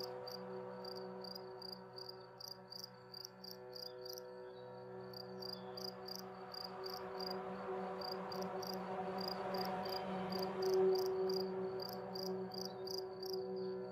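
Cricket chirping steadily, about three chirps a second with a brief pause partway through, over a soft sustained ambient music drone that swells slightly near the end.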